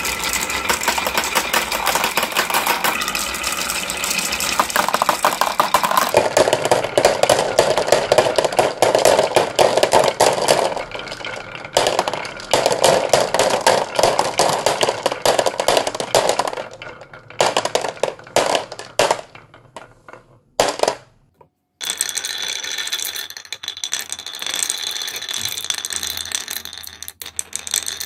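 Glass marbles rolling and clacking along wooden wave-shaped tracks and against one another: a dense, continuous clatter that thins to scattered clicks about two-thirds of the way through, breaks off briefly, then starts up again.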